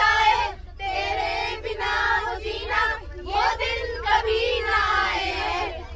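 Several girls singing a song together in long held phrases, over the steady low hum of the bus engine.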